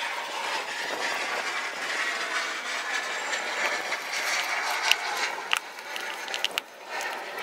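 Used engine oil streaming from the sump drain hole into a plastic sample cup as a steady rushing hiss, with a few sharp clicks from handling the drain plug and cup about five to six and a half seconds in.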